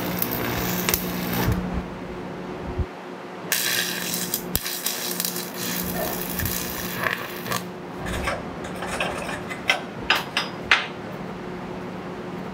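AC stick welding on cast iron plate with a Postalloy 50 rod at about 90 amps: the arc crackles and hisses for about a second and a half, stops briefly, then burns again for about four seconds. After it stops, a few sharp knocks and clatters follow.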